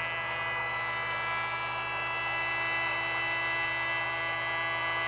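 Spindle of a gantry CNC milling machine running steadily as an end mill cuts an aluminium block under a spray of cutting coolant: a steady whine of several high tones over a hiss.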